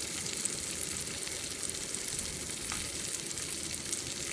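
Wagyu steak sizzling as it cooks, a steady hiss with small crackles.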